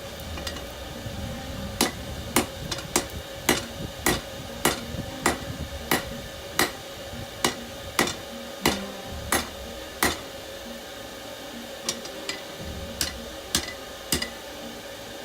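Forging hammer striking hot rebar on an anvil, drawing out an axe blade: a steady run of sharp metallic blows at about three every two seconds, starting about two seconds in, then after a short pause a few lighter blows near the end. A steady hum runs underneath.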